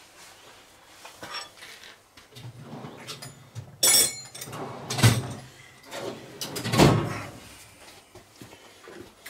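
Metal clanks and knocks from handling tools and parts around a cast-iron tractor steering box, with three sharper knocks about four, five and seven seconds in.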